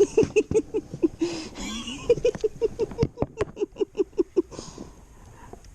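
A person laughing in a quick run of short "ha" pulses, about five or six a second, that trails off after about four seconds.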